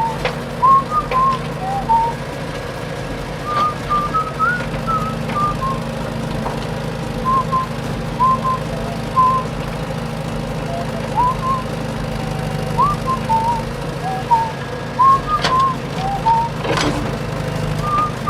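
A whistled tune: short phrases of quick, bending notes that repeat throughout, over a steady low hum.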